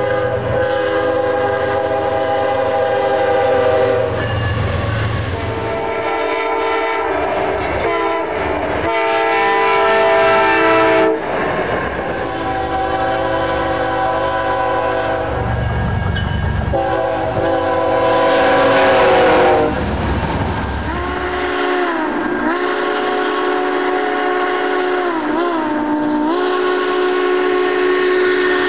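Locomotive horns sounding in a series of separate clips that change abruptly every few seconds, some with a low rumble of the train under them. Near the end, a horn's pitch dips and rises several times.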